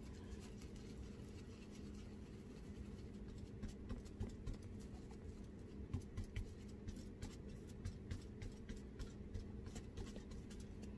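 Faint, irregular tapping and scratching of a small paintbrush dabbing sealer into the stamped recesses of an air-dry clay spoon rest, picking up a couple of seconds in, over a low steady hum.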